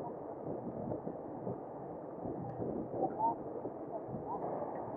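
Muffled wind and rolling noise picked up by a handlebar-mounted camera on a bicycle while riding, with faint, indistinct voices of other riders.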